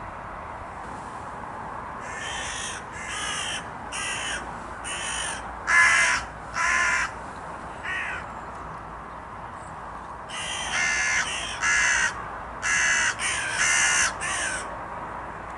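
A crow cawing harshly and repeatedly in agitation: about seven caws, a short pause, then five or six more in quicker succession.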